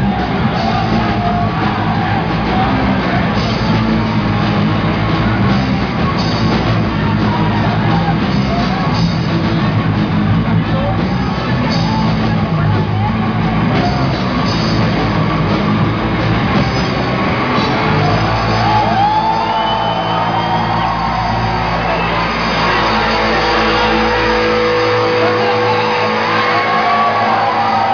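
Live heavy metal band playing loud, with distorted electric guitars, drums and shouted vocals.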